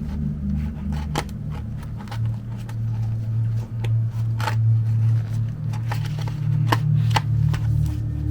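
Background music with a low, steady bass line, over which come a dozen or so sharp clicks and short rustles of packaging or the mug being handled.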